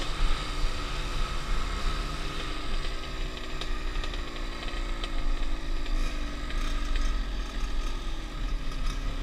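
Kawasaki KX two-stroke dirt bike engine under way, ridden on the road. Its pitch falls off over the first few seconds as the throttle is eased, then holds at a lower steady speed, with wind rumbling on the microphone throughout.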